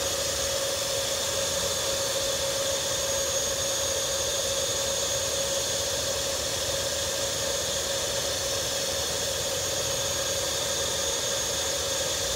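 Oase PondoVac Classic pond vacuum running steadily, its motor giving an even hum with one steady tone as it sucks debris off the surface of the pond water.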